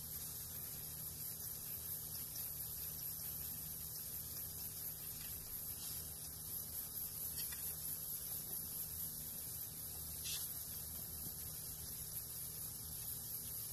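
Handheld cryo pen (CryoIQ PRO with a D3 tip) hissing steadily as its cryogen jet freezes a cutaneous papilloma on the dog's skin, over a low hum.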